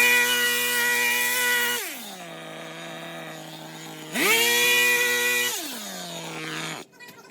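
Small two-stroke engine of a handheld garden power tool revved hard, dropping to idle, revved a second time, then shut off near the end.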